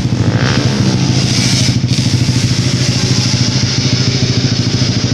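Motorcycle engine running steadily, holding about one pitch.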